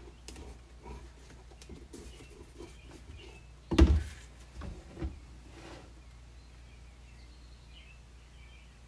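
Hollow plastic laundry jug being handled on a wooden workbench: light taps and rattles, then one loud knock about four seconds in as it is set down, followed by two softer knocks.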